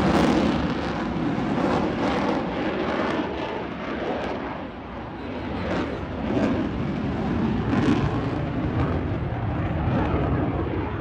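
F-35 fighter jet's single afterburning turbofan engine, loud roar that eases off about halfway through and then swells again.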